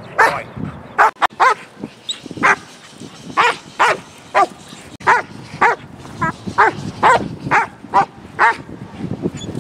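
German Shepherd barking repeatedly, about two loud barks a second. This is aggression-mode protection barking at a decoy in a padded bite suit, a dog in real fight drive.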